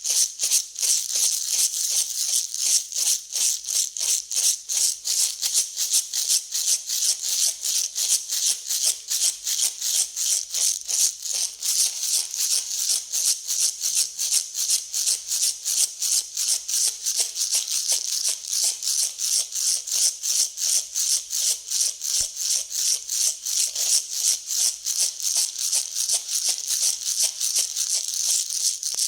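Dry grain (wheat, barley and corn) being mixed, rattling and hissing in a steady, even rhythm of about three strokes a second.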